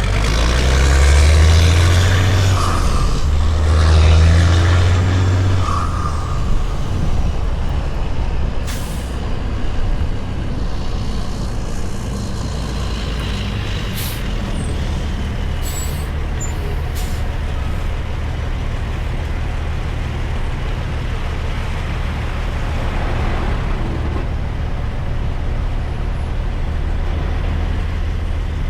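Heavy semi truck's diesel engine hauling a loaded excavator at about 129,000 lb gross weight. It is louder and pulling hard for the first six seconds, then runs steadily, with a few short sharp clicks around the middle.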